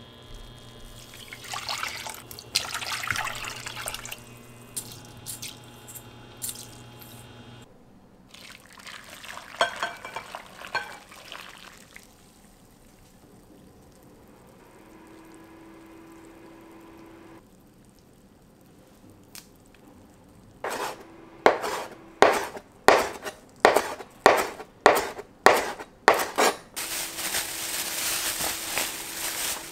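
Kitchen sounds in turn: liquid poured and splashing in the first seconds. Past the middle comes a kitchen knife chopping fresh dill on a cutting board, about ten quick strokes. Near the end a plastic bag crinkles as a block of butter is taken out.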